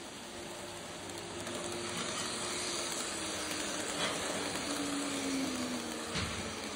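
Model electric train pulling into the station and slowing to a stop: a steady hissing rush that grows louder as it approaches, with a motor hum that sinks in pitch as it slows, and a couple of small clicks near the end.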